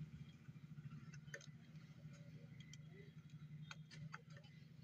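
Near silence: a steady low hum with a few faint, scattered clicks and ticks, as of small tools and a circuit board being handled during soldering work.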